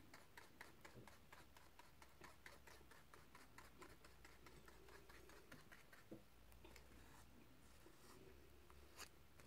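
Paintbrush mixing thick enamel paint in a clear plastic blister tray: faint, rapid ticks of the brush against the plastic, about four a second, thinning out after about four seconds. Otherwise near silence.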